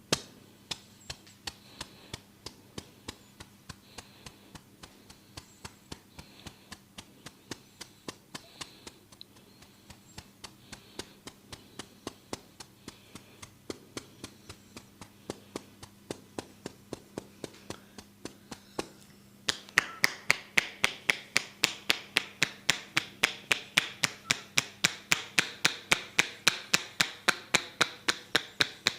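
A barber's fingers tapping a person's head in a massage, as a steady run of sharp taps about two a second. About two-thirds of the way in the taps turn louder and faster, about three a second.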